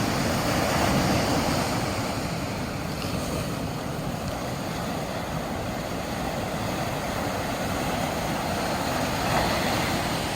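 Sea waves washing ashore: a steady rush of surf that swells a little about a second in and again near the end.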